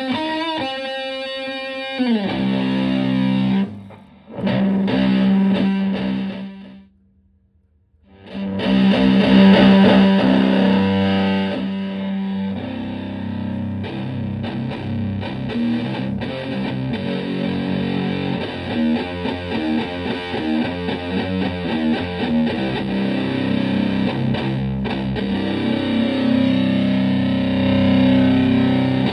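Electric guitar played through a Marshall Supa Fuzz-style fuzz pedal into a Twin Reverb-type amp, giving fuzz-distorted notes. It plays a bent note and a long held note, drops out briefly about seven seconds in, then keeps up continuous riffing.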